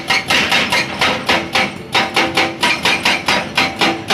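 Hydraulic breaker on an excavator arm hammering a rock face: rapid, even blows of the chisel into stone, about four a second.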